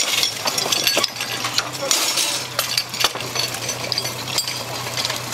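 Metal hose couplings clinking and knocking as suction hoses and a delivery hose are joined to a portable fire pump, with the pump's engine running steadily underneath.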